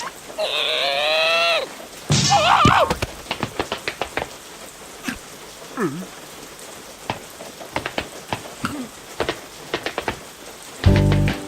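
Cartoon sound effects: a high wavering cry, then a second warbling cry with a low thud, followed by an irregular patter of small drips and taps with a few short squeaks. Music comes in near the end.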